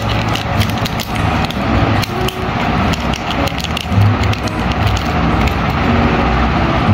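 Metallised anti-static bag crinkling and crackling in the hands as it is opened and a small sensor module is pulled out, over a steady low rumble.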